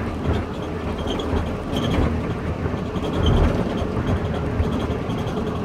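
Air conditioning blowing steadily in a van's cab, with a low rumble underneath.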